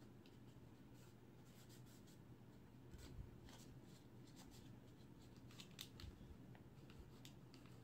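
Faint rustling of a cloth rag wiping down a 9 mm pistol, with scattered light clicks and ticks as the metal parts are handled.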